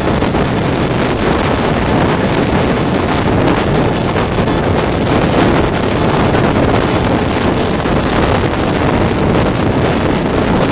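Wind buffeting the microphone of a moving car, a steady loud rush with road and vehicle noise beneath it.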